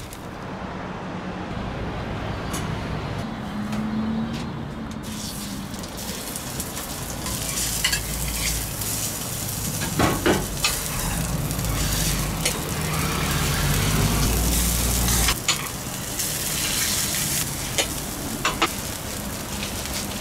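Ground-beef hamburger patties sizzling on a steel flat-top griddle, with sharp clacks of metal utensils striking the plate now and then, the loudest about halfway through.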